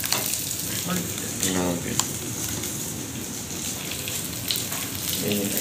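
Coconut oil sizzling in a stainless steel pan over a gas flame as small onions, curry leaves and dried chilies fry: a steady hiss with a few sharp crackles.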